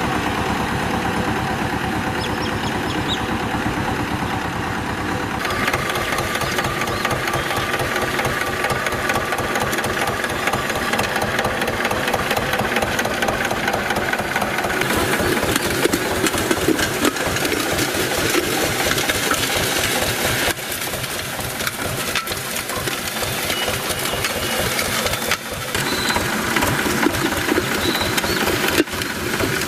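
Diesel farm tractor engine running with a fast, even chugging as the tractor pulls a disc harrow through the soil. Its sound changes abruptly a few times.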